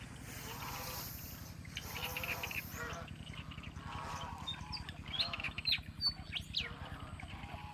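Ducks and chickens calling as they are fed rice: several bursts of raspy quacking calls, with a few sharp high chirps about two-thirds of the way in. A steady low hum runs underneath.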